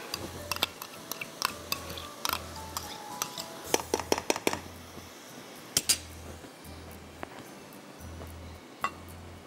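A metal spoon clinking and knocking against an open pressure-cooker pot while meat and yogurt are stirred, with a quick run of sharp clinks about four seconds in. Soft background music with a steady low beat plays underneath.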